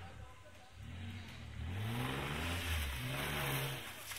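4x4 SUV engine revving in repeated rising and falling surges as it climbs a rutted snowy track, its wheels spinning and throwing snow and slush.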